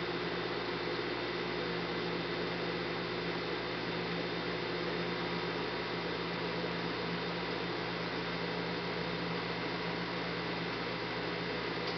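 Steady hum and hiss with several constant tones, from running aquarium equipment; the level does not change.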